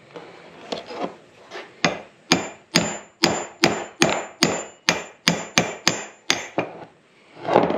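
Claw hammer striking a steel punch set inside a side-by-side's knuckle (bearing carrier), driving out the worn old bushings: a run of sharp metallic strikes with a brief ring, about two or three a second, after a few lighter taps.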